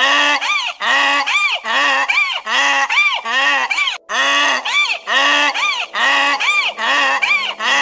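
Donkey braying: a long run of loud hee-haw calls, about one a second, with a short break about four seconds in.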